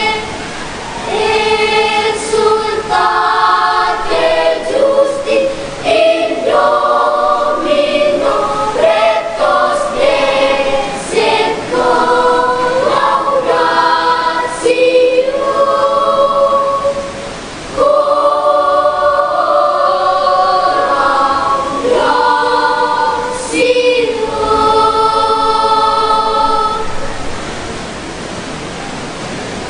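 Children's choir singing in parts, in phrases with short breaths between them. The singing stops near the end, leaving a steady hiss-like noise.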